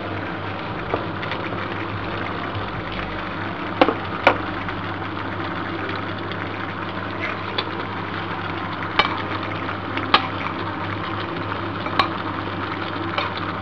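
Mince and vegetables stewing in a frying pan, a steady sizzle over a low hum, with boiled cauliflower florets just added. Every second or few a sharp click of the spoon or colander against the pan breaks in.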